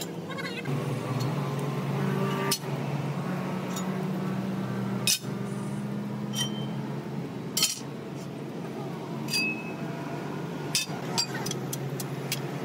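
Tools and steel parts clinking and tapping about a dozen times, a few strikes with a short high ring, over a steady low hum.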